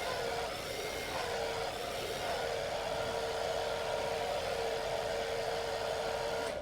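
Small electric motor running steadily with a whining hum, cutting off suddenly near the end.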